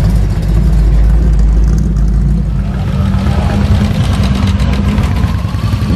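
Loud, steady low engine rumble of a classic car driving slowly past, then motorcycles riding off in the second half.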